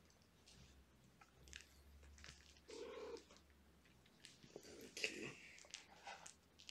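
Faint cat sounds: a low purr through the first half, a short meow about three seconds in, and light scratches and rustles of kittens' paws on a blanket.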